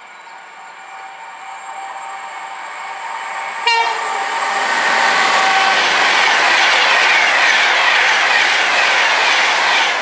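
Virgin Trains Class 390 Pendolino electric train running through the station at speed: a steady whine and rumble growing as it approaches, a sudden loud burst as the front reaches the platform edge about four seconds in, then a loud steady rush of wheels and air as the carriages sweep past.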